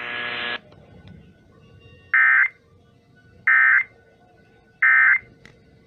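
Emergency Alert System end-of-message data bursts: three short, shrill digital screeches about a second and a half apart, the code that closes a broadcast alert. A quieter buzzing tone stops about half a second in, before the first burst.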